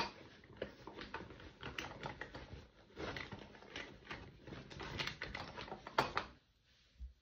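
Rapid, irregular clicking and rattling that stops about six seconds in.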